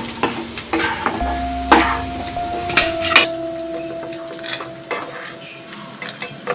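Wooden spatula scraping and knocking against a non-stick wok as golden-fried dried prawns are scooped out of hot coconut oil, which keeps sizzling under it. The knocks come at irregular intervals, about six times.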